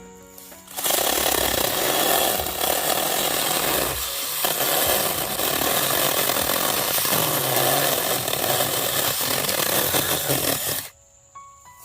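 Mini cordless battery-powered chainsaw (21-volt) cutting through a thicker piece of wood. The cut starts about a second in and stops sharply shortly before the end, with a brief dip around four seconds. The thicker wood takes a little extra power.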